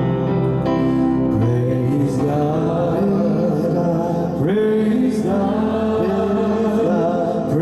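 A man singing a slow hymn melody with long held notes over instrumental accompaniment that includes guitar.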